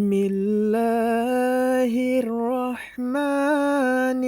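Intro music: a voice singing slow, long held notes in two phrases, with a short break about two and a half seconds in.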